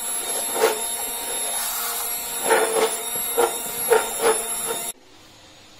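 Electric hand blender running steadily as it purées boiled tomato, carrot and beetroot in a steel pot, with a few sharp knocks as it is worked through the pot. The motor cuts off suddenly about five seconds in.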